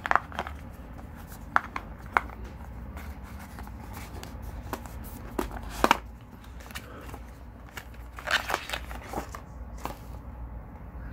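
Handling noise from cardboard packaging and a small brushless RC motor: scattered sharp clicks and taps as the motor is lifted from its foam insert and a cardboard box sleeve is pulled apart, with a longer cardboard rustle about eight seconds in. A low steady hum runs underneath.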